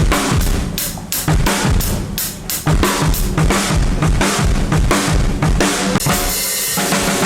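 Rock drum kit played during a sound check: a fast run of bass drum and snare strokes with cymbal wash. About six seconds in the drumming stops and a held pitched tone remains.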